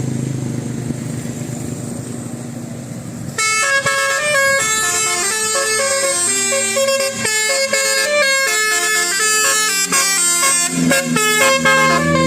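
A bus's multi-tone telolet air horn (basuri type) plays a melody of stepping notes, starting about three seconds in. Before that an engine runs steadily.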